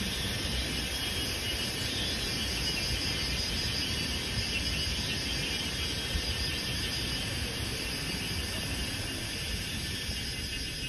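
Steady outdoor ambience: a continuous high insect buzz, likely cicadas or crickets in the hillside greenery, over a low rumble.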